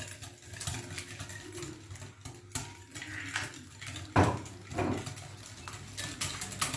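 Wire whisk clicking against a glass bowl as egg yolks are beaten, with a louder knock about four seconds in.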